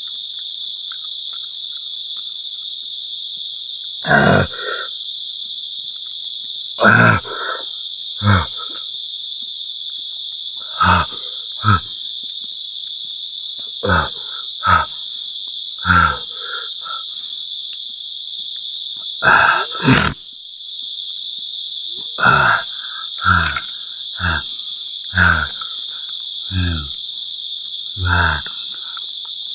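Steady, high-pitched insect chorus droning without a break, with around fifteen short grunts and mouth sounds from a man chewing green mango, each under a second long.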